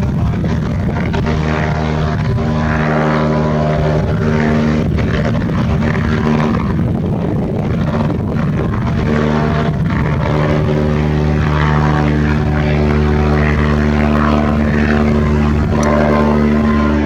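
Rotax 532 two-cylinder two-stroke engine of a Flyer GT ultralight, with its propeller, running steadily at a fairly constant pitch.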